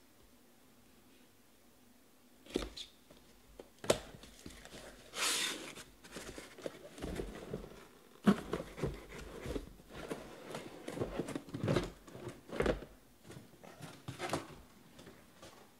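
A cardboard shipping case of shrink-wrapped trading-card hobby boxes being handled and unpacked. Starting about two and a half seconds in there are irregular knocks and thumps of cardboard, with a brief scraping rustle about five seconds in, then uneven handling noises as the boxes are taken out and stacked.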